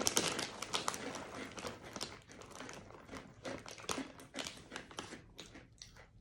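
Plastic snack bag crinkling as it is handled and opened, a dense irregular crackle that is loudest at first and dies down towards the end.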